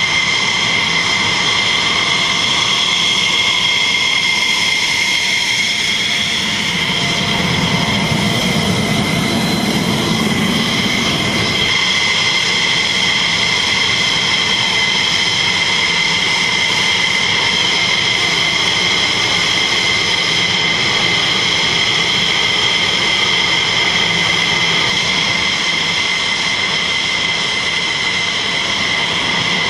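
F-16 Fighting Falcon jet engines running on the ground, a steady loud whine made of several high tones over a rushing noise. A deeper rumble swells up about a quarter of the way in and stops abruptly before the midpoint.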